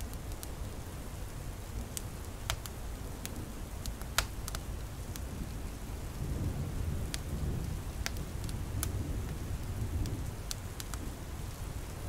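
Storm-and-fireside ambience: a steady hiss of rain under low rumbling thunder that swells about halfway through, with scattered sharp pops of a crackling wood fire.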